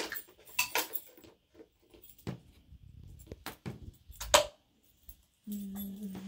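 Scattered clicks and knocks of small toys being handled and set down: a toy house, little bowls and a toy bed, with one sharper knock about four seconds in. A short steady hum comes in near the end.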